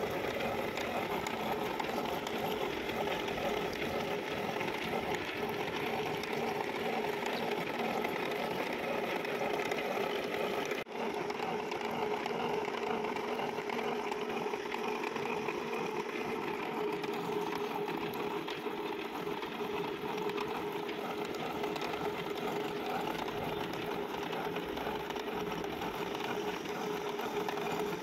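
Machine cutting the thread of a 7-module two-start worm shaft with a rotating toothed cutter under coolant, running steadily at a constant pitch. The sound breaks off for an instant about eleven seconds in.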